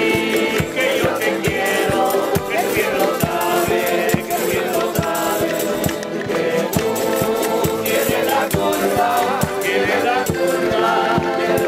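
Folk group of accordions, strummed plucked strings and a frame drum playing a lively tune with a steady beat, with several voices singing along.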